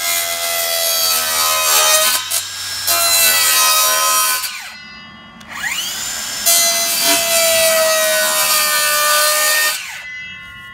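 Handheld circular saw cutting through a thin cement faux brick wall panel in two passes. The blade whines and rasps through the panel, the saw winds down about four and a half seconds in, spins back up a second later, cuts again and winds down near the end.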